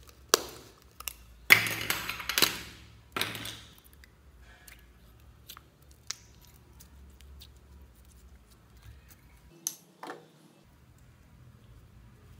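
Small plastic slime containers being handled and opened: sharp plastic clicks and a crisp scraping as a lid is twisted and pulled off, loudest in the first few seconds. Then sparse faint ticks, and two more clicks a little before the end.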